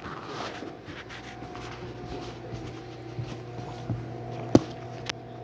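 A dog crunching and chewing a hard gingerbread dog cookie: scattered crunches and clicks, with one sharp crack about four and a half seconds in.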